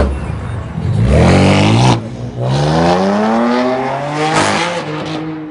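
A passing car accelerating hard, its engine rising in pitch for about two seconds, dropping briefly as it shifts gear, then climbing again before fading away.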